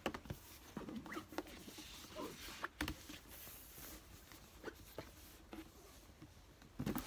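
A cardboard gift box being handled as its satin ribbon is pulled off: soft scraping and rustling with several light knocks and taps of the box, the sharpest near the middle and just before the end.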